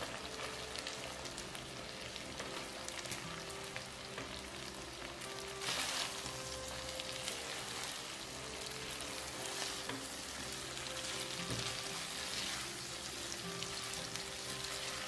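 Garlic shrimp sauce sizzling in a nonstick frying pan while cooked spaghetti is tossed through it with tongs; the sizzle flares up louder about six seconds in.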